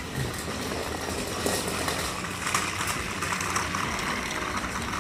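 Battery-powered Trackmaster toy trains running on plastic track: a steady motor-and-gear whir with small clicks from the wheels and track.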